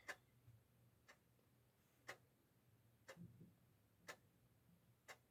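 A clock ticking faintly, one sharp tick about every second, in a near-silent room.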